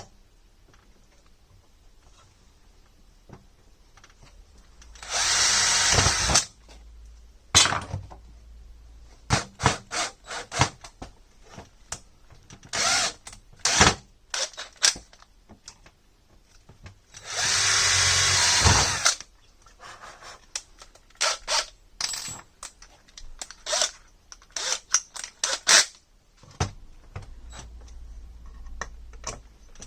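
Power drill running in two bursts of about a second and a half each, with many short clicks and knocks of tool and parts being handled in between.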